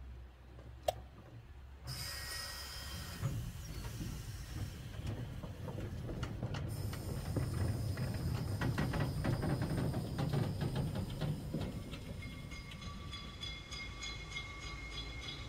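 Saxon IV K narrow-gauge Meyer-type steam tank locomotive pulling away: a sharp click about a second in, then steam hissing that starts suddenly and cuts off after about five seconds. Under the hiss, exhaust beats and running-gear clatter grow louder and then ease off. Near the end there are faint steady high tones.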